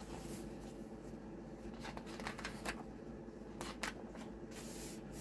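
Pages of a large picture book being flipped by hand: several faint paper rustles and flaps.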